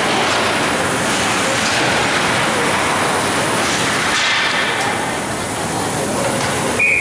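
Steady ice-rink noise of a high school hockey game, with spectators' chatter. Near the end a referee's whistle blows, a single held shrill tone, stopping play at the net.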